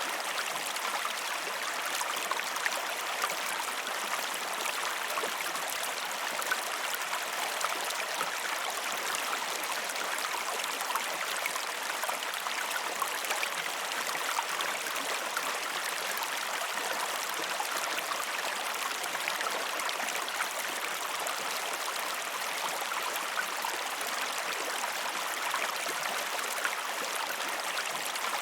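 River water flowing over stones in a steady, even rush, dotted with small splashes and gurgles.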